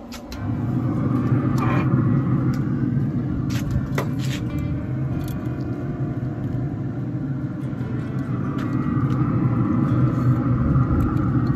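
A steady low rumble, with metal clicks and knocks of tongs against the smoker's cast grates and lid as a whole chicken is set on the grill.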